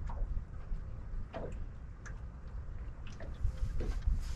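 Wind rumbling and buffeting on the microphone, with light, irregular clicks and ticks over it, roughly one every half second to a second.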